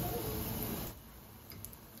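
Apple fritter batter sizzling in hot oil in a wok. About a second in the sizzle drops suddenly to a much quieter level, with a couple of faint clicks after.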